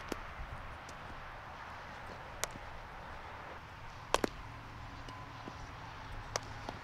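Baseball infield practice: a handful of sharp, short cracks of a bat hitting ground balls and the ball popping into leather gloves, two of them close together a little past the middle, over steady outdoor air noise.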